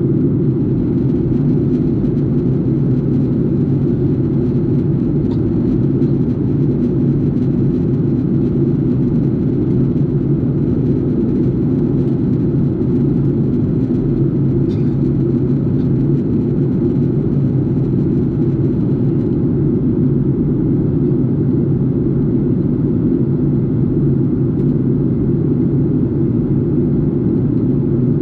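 Steady cabin noise of a jet airliner in flight, heard from inside the cabin: the engines and the air rushing past the fuselage make an even, low drone.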